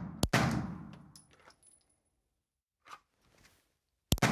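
Girsan MC9 Match 9mm pistol firing: one shot about a quarter second in, echoing off the walls of an indoor range, and another shot just before the end.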